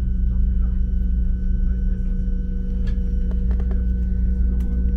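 DB ICE 3 high-speed train heard from inside the passenger cabin: a steady deep rumble and hum with a few steady electrical whine tones held through, and a few faint clicks.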